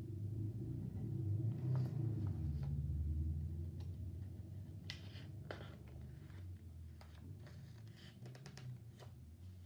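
Pages of a hardcover picture book being handled and turned, with short papery rustles and crinkles, thickest in the second half. Under them a low rumble is loudest early on and fades away.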